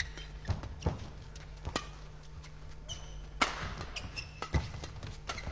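Badminton doubles rally: rackets striking the shuttlecock in a series of sharp hits about a second apart, with short high squeaks of court shoes on the floor between them, over arena hall ambience.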